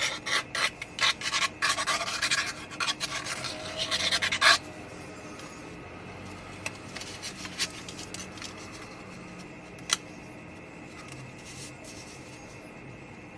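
Cardstock being handled, rubbed and pressed down while a piece is glued into place: a dense run of scratchy rubbing for about the first four and a half seconds, then only a few light ticks, with one sharp click about ten seconds in.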